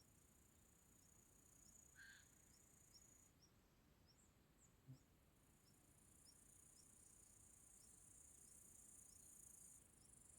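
Faint chorus of crickets: a steady high-pitched trilling, with short chirps repeating about twice a second. A single brief bird note comes about two seconds in, and a soft knock about five seconds in.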